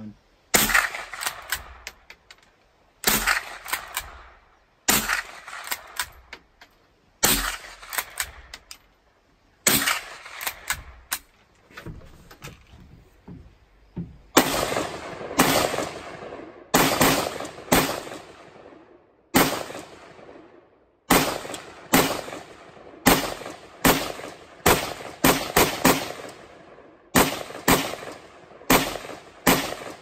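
Pump-action .22 rifle firing about twenty single shots, each a sharp crack with a short echoing tail. The shots come a couple of seconds apart at first, then faster, less than a second apart, through the second half.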